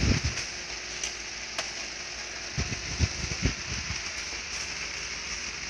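Hands and a small tool working on the metal parts of a Riso duplicator's pressure unit while a retaining clip is prised off: two sharp small clicks, then a few low knocks a second or so later, over a steady hiss.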